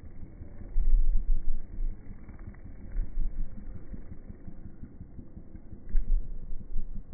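Wind buffeting the microphone, slowed down by slow-motion playback into a deep rumble. It swells in irregular gusts, the strongest about a second in and again near six seconds.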